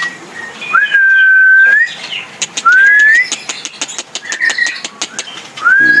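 Three long, loud, clear whistles, each gliding up and then holding on one pitch, with a quick run of short chirps and clicks from caged songbirds between the second and the third.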